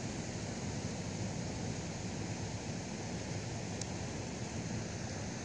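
Steady outdoor wind noise rumbling on the microphone over open water, with one faint short tick about four seconds in.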